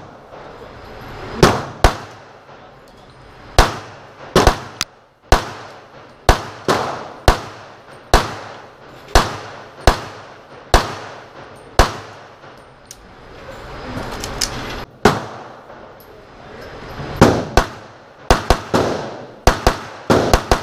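A .38 Super compensated open-class race pistol fired again and again with 124-grain bullets over CFE Pistol powder: sharp shots with ringing echoes, some single and spaced a second or more apart, others in quick strings of two to four, with a dense run of shots near the end.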